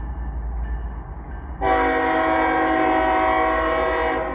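Freight locomotive's air horn sounding one long chord blast of about two and a half seconds, starting about a second and a half in, over the low steady rumble of the approaching train.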